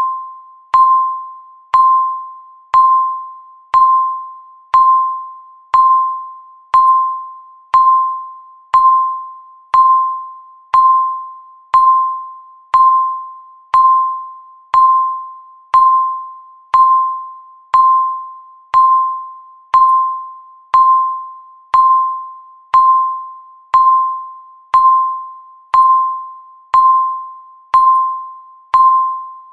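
Countdown timer beeping once a second: a single clear tone with a sharp start that fades away before the next beep, evenly repeated.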